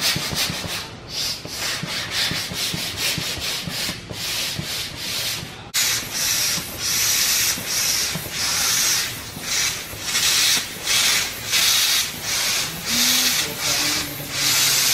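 Manual air pump pushing air through a hose into an inflatable kayak seat, a hiss with each stroke. The strokes are quick and lighter at first, then louder and steadier at about two a second from roughly six seconds in, as the seat fills.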